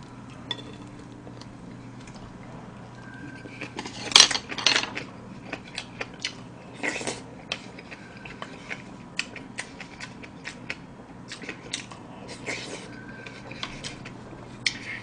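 Spoon and chopsticks clinking and scraping against a bowl during eating, with chewing in between. Scattered sharp clicks run throughout, with the loudest clatter about four seconds in and another burst about seven seconds in.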